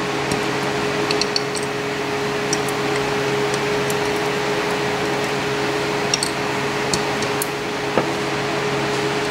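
Steady fan-like hum with a low drone, and a few faint, light clicks as small brass lock pins are handled.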